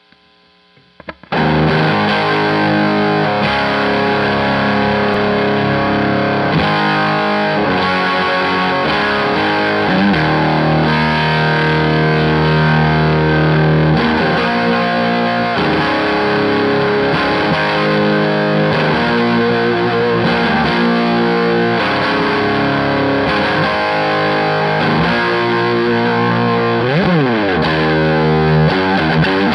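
Electric guitar playing rock chords and riffs: a 1980 Les Paul through a Scarlett Screamer 30 head into a 2x12 cabinet loaded with Eminence CV75 speakers, close-miked with no processing. It comes in about a second in and plays on with held chords, with a slide down and back up in pitch near the end.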